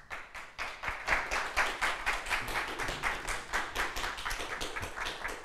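Audience applauding with many overlapping hand claps, tapering off at the end.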